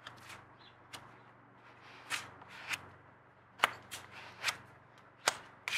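Plastic spreader scraping epoxy along the joint between a wooden keel timber and a plywood hull: a run of short, uneven scrapes and scuffs, roughly one or two a second.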